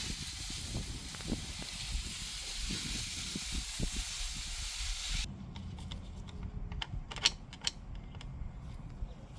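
A steady hiss that cuts off suddenly about five seconds in, followed by a few light clicks and knocks of parts being handled.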